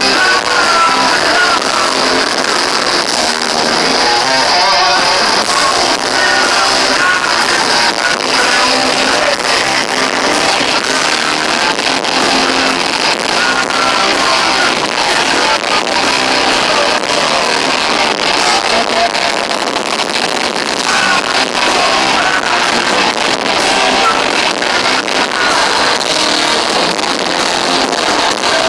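Heavy metal band playing live, with distorted electric guitars and singing. The recording is harsh and thin, with little bass, typical of a loud concert captured on a small recorder.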